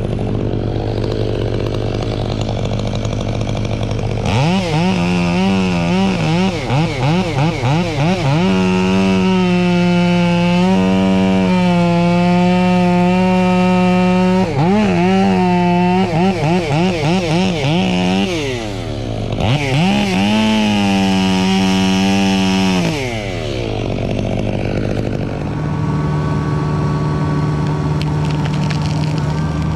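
Two-stroke chainsaw revving in quick throttle blips, then held at high revs while cutting, with short drops in between. It lets off about 23 seconds in, leaving a lower steady hum.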